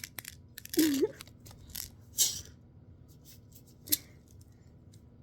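A few short handling sounds of plastic fidget toys: a rustle a little after two seconds and a single sharp click near four seconds, with a brief voiced sound about a second in.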